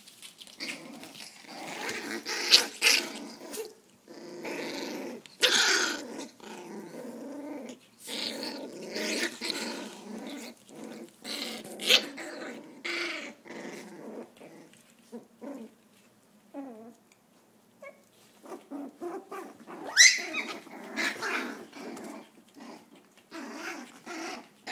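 Shiba Inu puppies play-fighting, growling in irregular bursts, with a few sharp, loud yips.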